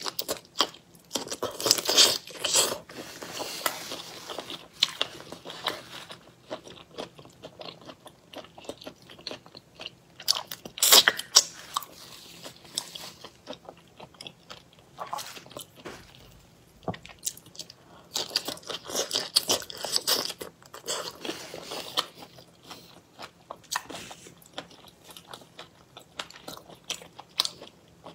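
Close-miked eating: a woman biting into and chewing shrimp in chili sauce, with crackly, wet bites and chews coming in spells of a few seconds and quieter gaps between. The loudest spell is about eleven seconds in.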